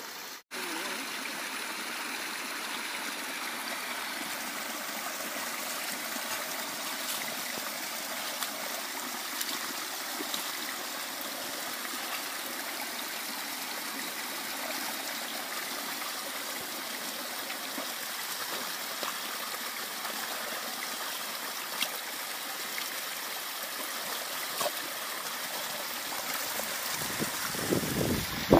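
Steady rush of running water, trickling and gurgling without a break. Near the end a louder, lower noise comes in.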